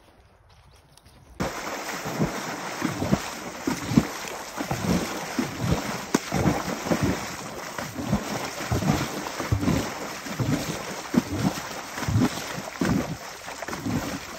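A paint horse wading through a shallow creek, its legs churning and splashing the water in a run of repeated sloshes over the rushing water. It starts suddenly about a second and a half in.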